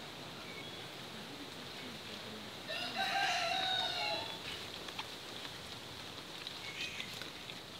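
A rooster crows once, a single call of about a second and a half, a few seconds in.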